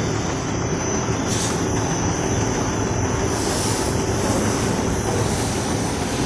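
Five-colour vertical flexo printing press running steadily: a continuous mechanical rumble with a thin, steady high whine.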